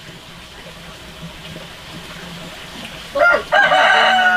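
A rooster crowing loudly about three seconds in: a short first note, then a long drawn-out one.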